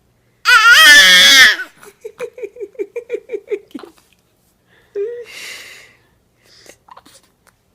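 Laughter: a loud, high, wavering squeal of about a second, then a run of about ten quick giggles. Near the middle a short voiced burst trails off into a breathy hiss.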